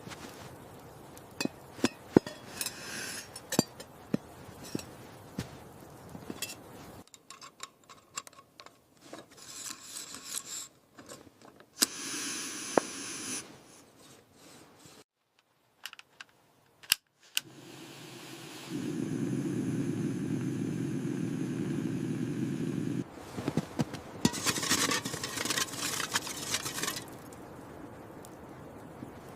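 Camping gear being handled: a string of small clicks, clinks and scrapes of metal and hard items. In the middle there is a steady low hum for about four seconds, followed by a rustling stretch.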